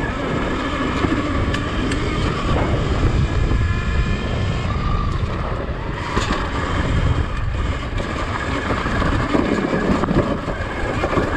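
2019 Sur-Ron X electric dirt bike riding over a rough dirt trail: steady rolling and wind noise with a heavy low rumble, broken by scattered knocks and rattles as the bike goes over bumps and rocks.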